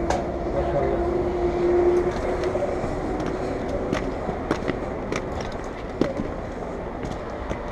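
Inline skates clicking and knocking on stone stair steps as the skater walks down, over steady street noise. A held tone sounds for the first two seconds.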